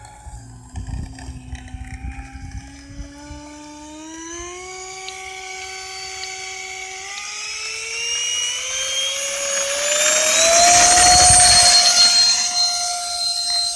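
Sapac EF2000 RC Eurofighter's electric motor whining as the throttle is opened for its takeoff run. The whine climbs in pitch in steps and grows loudest about eleven seconds in.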